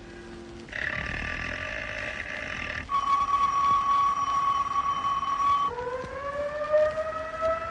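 A run of held tones that jump abruptly in pitch, then about six seconds in a civil defense siren starts winding up, its pitch rising slowly.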